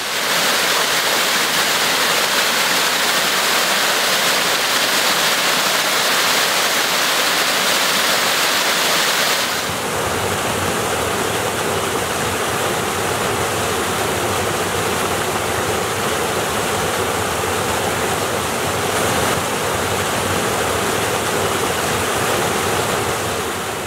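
Steady rushing of water pouring down the rock ledges of Yost Run Falls. About ten seconds in it changes to a deeper, fuller rush from the stream's lower cascades, and it fades out near the end.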